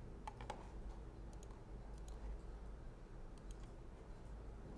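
Computer mouse clicking a few times, some clicks in quick pairs, over a faint low hum.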